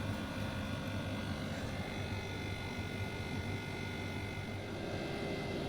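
Room air conditioner running with a steady low hum and a faint, thin high-pitched whine.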